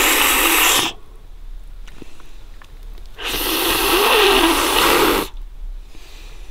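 A person slurping and sucking at a cooked fish head to draw out the fat behind the eye: two long, hissy slurps, one at the start and a longer one from about three to five seconds in.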